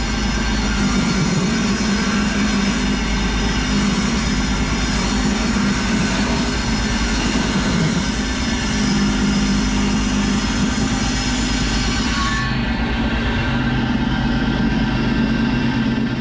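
A power woodworking machine running steadily, a continuous loud mechanical noise with a low hum; about twelve seconds in the high hiss drops away while the machine keeps running.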